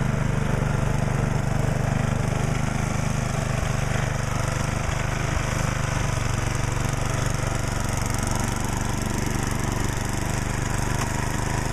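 Small petrol engine of a snow blower running steadily under load, with an even hum.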